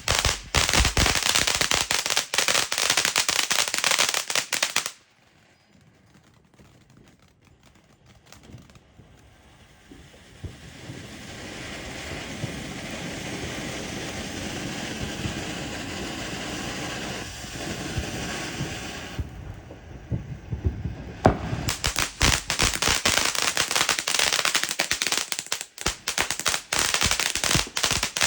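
Firecrackers going off in rapid, dense crackling pops for about five seconds. After a short lull there is a steady hiss, and then dense crackling pops return for the last seven seconds or so.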